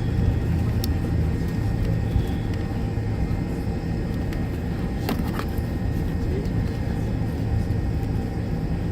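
Steady low rumble inside a jet airliner's cabin as it taxis toward the gate after landing, with a few faint clicks.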